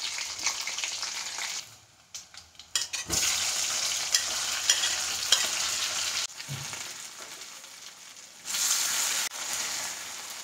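Boiled potato pieces and chopped tomatoes frying in hot oil in a kadhai: a sizzle that surges loud about three seconds in and again about eight and a half seconds in, with the clicks of a spatula stirring against the pan.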